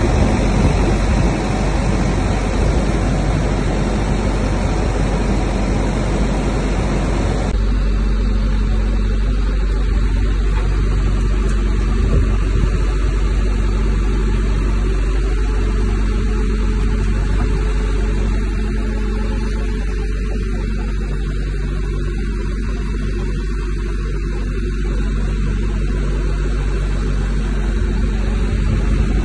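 Nemek 510TS well-drilling rig's diesel engine running steadily with a low hum. About seven seconds in, the loud rushing noise over it drops away abruptly, leaving the engine's hum.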